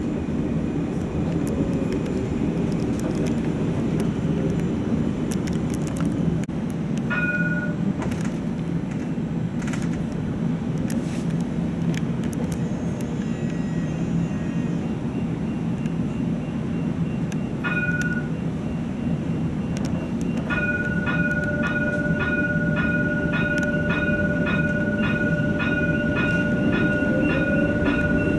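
European-built catenary-free light rail tram running, heard from inside as a steady low running noise. Two short electronic beeps come about a quarter and about two-thirds of the way in. Near the end a steady electronic tone sounds with a pulsing beep about twice a second.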